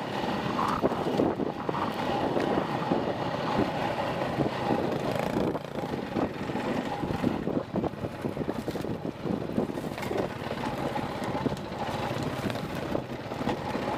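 Dirt bike engine running under changing throttle on rough singletrack, with wind noise on the microphone and scattered knocks from the bumpy trail.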